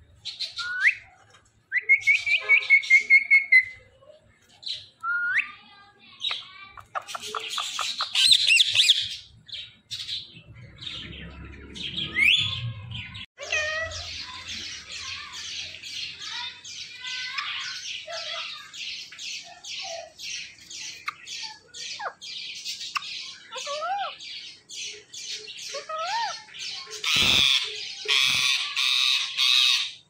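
Rose-ringed (Indian ringneck) parakeets calling. Short rising chirps and squawks give way to a long run of rapid, repeated chattering calls through the middle, with loud harsh squawks near the end.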